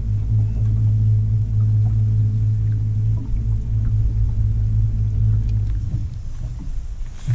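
Bow-mounted electric trolling motor running with a steady low hum, cutting off about six seconds in. A brief knock right at the end.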